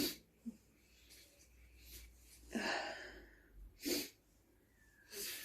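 A woman sniffing through her nose, a few short sniffs in the second half.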